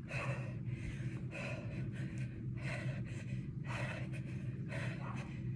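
A woman breathing hard from exertion during skater jumps, with sharp gasping breaths about twice a second. A steady low hum runs underneath.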